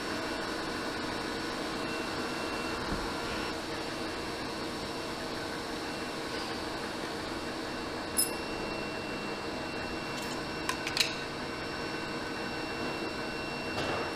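Steady factory hum from machinery and ventilation, with several steady tones running through it. A sharp click about eight seconds in, and a quick cluster of clicks around eleven seconds as small parts or a box are handled.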